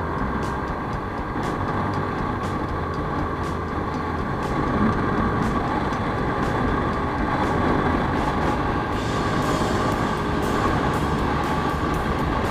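Steady road and wind noise of a motor scooter riding in traffic, mixed with background music with a regular beat.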